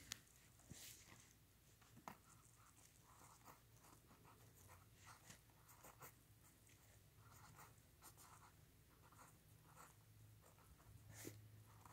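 Pen writing on lined spiral-notebook paper: faint, short scratching strokes of handwriting, with a few light clicks, one near the start, one about two seconds in, and a slightly louder one near the end.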